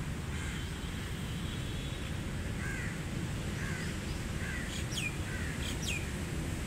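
Birds calling outdoors: scattered short chirps, then near the end two pairs of sharp calls that sweep steeply down in pitch, over a steady low background rumble.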